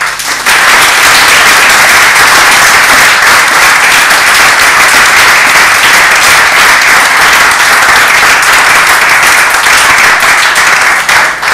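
Audience applause, breaking out at once and holding steady, then thinning out near the end.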